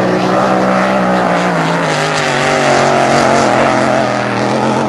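Racing powerboat engine running flat out as the boat passes, its pitch dropping about a second and a half in.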